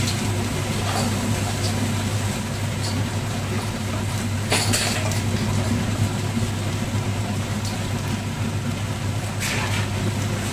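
Vegetables and noodles frying in non-stick pans while wooden spatulas stir and scrape them, over a steady low hum. A louder scrape comes about halfway and another near the end.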